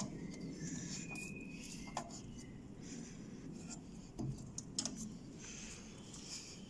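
A few sharp clicks and knocks from a hand working the rotary switch of an old, rusty metal electrical control panel, over a steady low background rumble.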